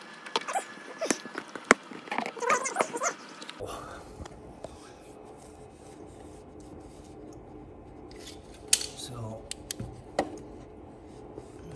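An Indian Challenger's intake snorkel being worked loose and pulled out of the air box by hand: a quick run of clicks, knocks and short squeaks for the first few seconds. After an abrupt change to a quieter background, only a couple of single knocks follow.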